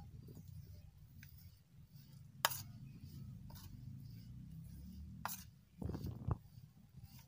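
A metal spoon clinking and scraping against a stainless-steel plate as chopped green garlic is mixed with spices and mustard oil, with a few sharp clinks, the loudest about two and a half seconds in, over a low steady rumble.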